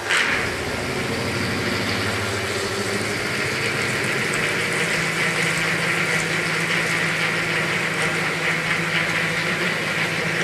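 A 3/4-inch twist drill in a CNC mill cutting a heavy hole in steel at reduced spindle speed under flood coolant. The cut starts suddenly, runs steadily over a low hum with a high ringing that grows stronger midway, and stops abruptly near the end. The ringing is chatter, which the machinist thinks comes from the drill tip engaging the top of the stock before the drill's sides are guided by the hole.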